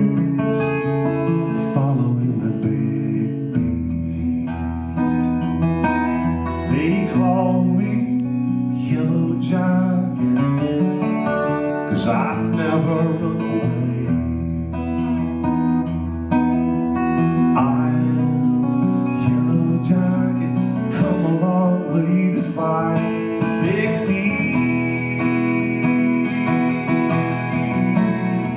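Acoustic guitar strummed in a live solo performance, with a man's voice singing at times over it.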